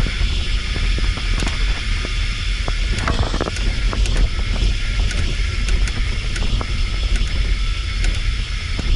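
A vehicle driving over a rough, rocky dirt road: a steady low rumble with frequent knocks and rattles as it jolts over stones.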